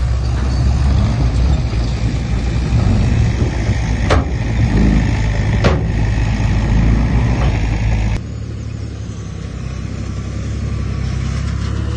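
Heavy diesel engine of earth-moving machinery running with a deep, steady rumble, with two sharp knocks about four and six seconds in. About eight seconds in the sound switches abruptly to a quieter, lighter engine hum.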